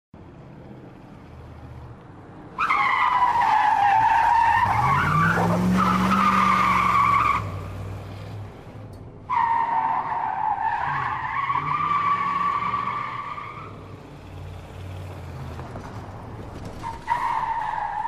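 American muscle car drifting, its tyres screeching in three long squeals over the engine's low rumble. The first squeal starts about 2.5 s in and lasts nearly five seconds, with the engine revving up during it. The second comes about 9 s in, and a third starts near the end.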